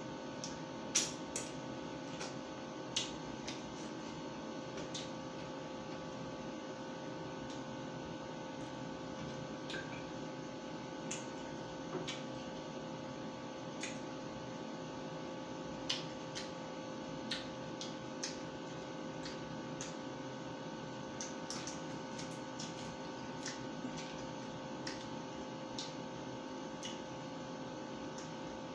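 Eating by hand: scattered sharp clicks and smacks, every second or two, as roast chicken is torn apart and chewed, over a steady electrical hum.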